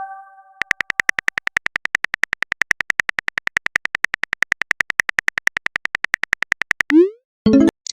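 Phone keyboard typing sound effect: a long, even run of short taps, about ten a second, stopping about seven seconds in. It is followed by a short rising pop, the message-sent sound, and a brief electronic chime.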